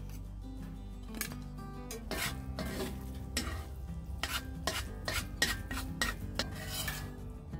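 A metal fork stirring scrambled eggs in a cast iron skillet, scraping and clinking against the pan about twice a second, over soft background music.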